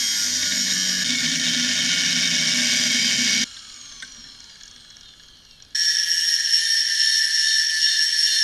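Corded angle grinder cutting through rusty steel plate with a steady high whine, stopping abruptly about three and a half seconds in. After a quieter gap of about two seconds it starts again, grinding a small steel plate, with a steady piercing whine.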